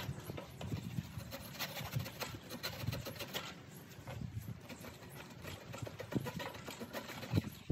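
A hand tool, likely a chisel, working out the waste wood from a half lap joint in a timber post: a series of light, irregular knocks and scrapes, about one every half second to a second.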